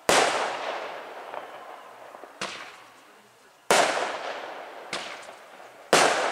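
Aerial firework shells bursting: three loud bangs, each trailing off in a long echoing rumble, with two softer sharp pops between them.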